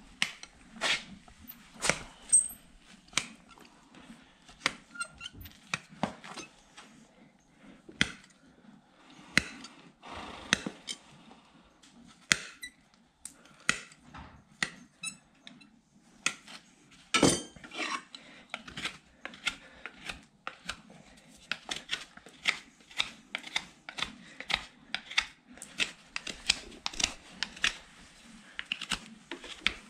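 Hoof nippers cutting through a horse's hoof wall: an irregular series of sharp snaps and clicks, with the loudest snap a little past halfway.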